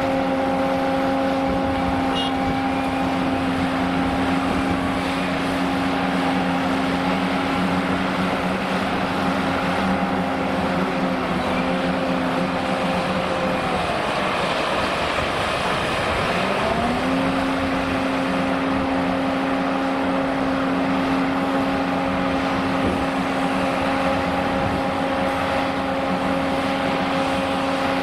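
Liebherr R980 SME front shovel's diesel engine and hydraulics running steadily under load as it dumps overburden into a mining dump truck, swings back and digs. The engine's drone sags and fades about halfway through, then climbs back to its steady pitch.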